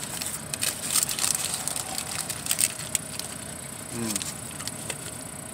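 Burrito paper wrapper crinkling in the hands and chewing close to the microphone, a string of short sharp crackles. About four seconds in comes a brief hum from the eater.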